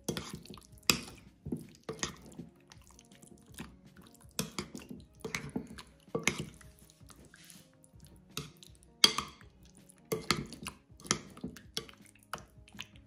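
Metal spoon stirring chicken pieces through a thick yogurt marinade in a ceramic bowl: irregular clinks and scrapes of the spoon against the bowl, with wet mixing sounds in between.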